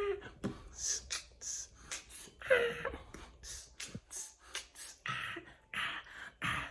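A man whispering and breathing under his breath: short hissy bursts, with one louder voiced sound about two and a half seconds in.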